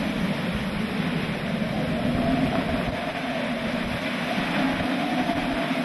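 Hurricane-force wind and driving rain, a steady rushing with a wavering low howl.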